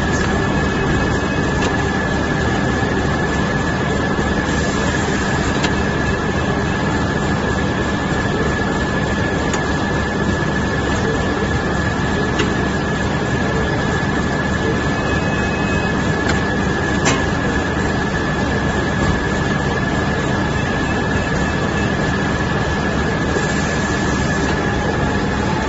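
Core-type vegetable bag-on-roll making machine running steadily amid trade-hall machinery noise: a constant loud mechanical din with a steady high-pitched whine and an occasional faint click.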